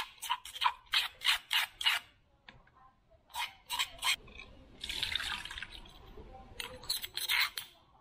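A spoon scraping pounded chilli, turmeric and ginger spice paste out of a mortar: quick strokes about three a second that stop about two seconds in, three more near the middle, a short hiss about five seconds in, then another run of strokes near the end.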